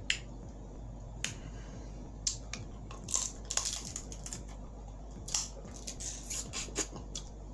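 Close-miked eating of a seafood boil: irregular sharp cracks, crunches and smacks of crab shell and chewing, with a dense cluster of them around the middle and more near the end.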